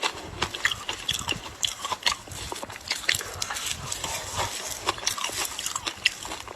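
Ice being bitten and chewed close to the microphone: a dense, irregular run of sharp cracks and crunches.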